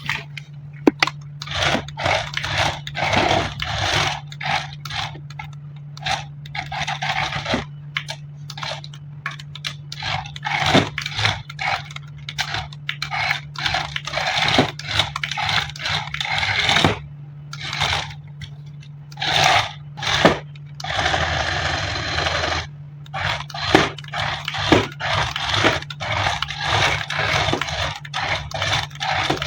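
Toy packaging being handled during an unboxing: cardboard and plastic scraping, crinkling and tearing in many short, irregular bursts, over a faint steady low hum.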